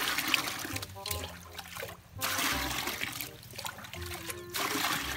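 Water poured from a steel mug into a plastic bucket, splashing in repeated pours with a short break about two seconds in as the mug is dipped back into the tub. Background music with a steady beat plays underneath.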